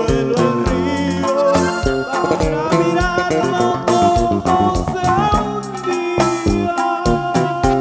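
Live corrido played by a norteño band: button accordion melody over stepping bass notes and a steady drum beat, with a singer's voice.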